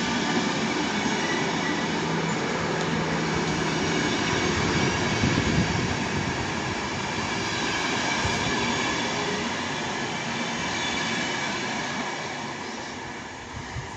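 RegioJet passenger coaches rolling past on the rails. The wheel-on-rail noise runs steadily and then fades over the last couple of seconds as the train draws away.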